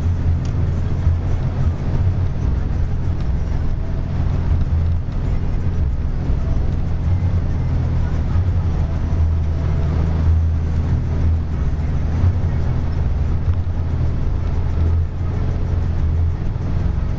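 A vehicle engine running at a steady speed, a low even drone with no change in pitch.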